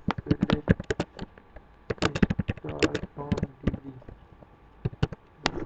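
Computer keyboard typing: quick runs of key clicks with a short pause about four seconds in.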